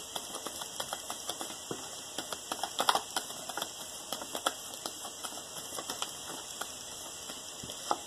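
Tarot cards being shuffled and handled: a run of quick, irregular soft clicks and flicks as the cards slide and tap against each other, a few a little louder than the rest.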